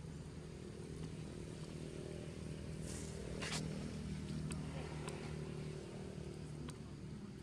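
An engine running steadily with a low hum, a little louder around the middle, and a brief sharp click about three and a half seconds in.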